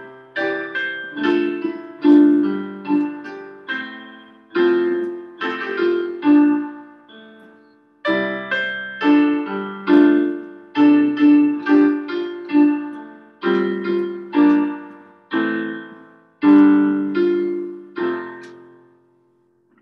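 A piano playing a hymn in slow, full chords, each struck and left to ring. The last chord fades out shortly before the end.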